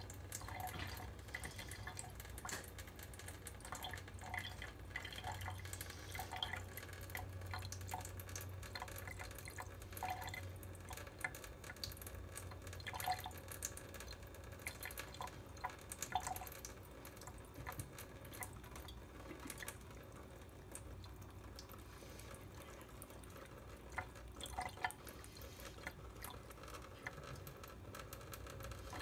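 A thin stream from a kitchen faucet trickling into a stainless steel sink, with irregular plinking drips and splashes.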